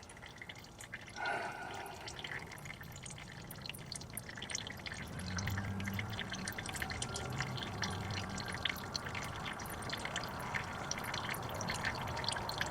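Used engine oil draining from a Dodge Durango's oil pan into a drain pan: a steady trickle with many small drips spattering in.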